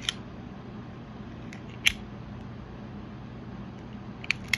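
Clicks from the blade-flip mechanism of a Toughbuilt scraper utility knife as the blade is switched between knife and scraper positions: one click near the start, a louder one about two seconds in, and two quick clicks near the end. The mechanism flips only some of the time, which the owner suspects is a defect.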